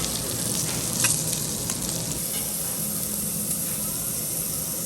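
Food sizzling as it fries on a hot griddle or pan, a steady hiss with a brief click about a second in.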